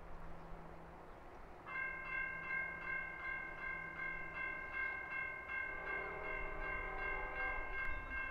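Railroad grade-crossing warning bell starts ringing about two seconds in, a steady bright ringing with regular strikes that signals a train is approaching the crossing.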